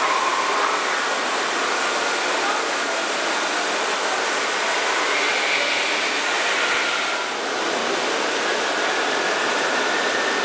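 A steady, even rushing noise that does not let up, like running water or moving air.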